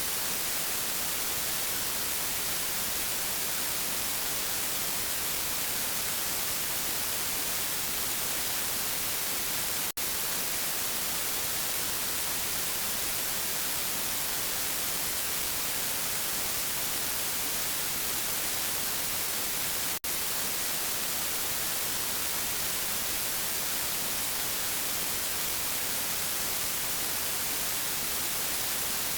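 Steady static hiss like white noise, strongest in the upper range, cutting out for an instant twice, about ten seconds apart.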